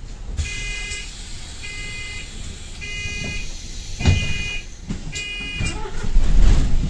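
Double-decker bus door warning beeper sounding five evenly spaced beeps, about one a second, over the low rumble of the bus's engine, which swells louder near the end.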